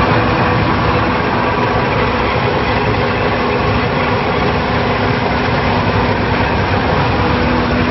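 Smooth roller crusher running, its rolls and V-belt drive giving a loud, steady mechanical rumble with a constant hum over it.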